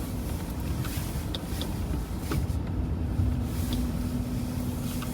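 Inside a moving car: a steady low rumble of engine and tyres with a faint steady hum and a few light clicks.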